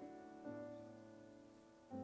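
Soft keyboard music playing under a prayer: sustained chords, with a new chord about half a second in and another near the end.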